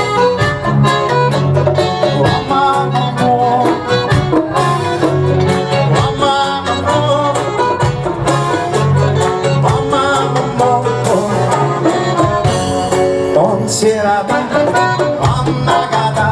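A band playing music with a steady beat.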